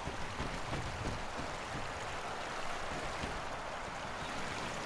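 Steady rushing noise, with a few soft low thumps in the first second or so.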